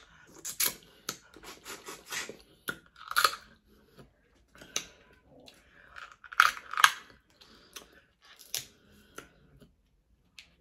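Close-up crunching and chewing of Dungeness crab, the shell cracking in irregular sharp snaps. The loudest snaps come about six and a half seconds in, and it goes quiet shortly before the end.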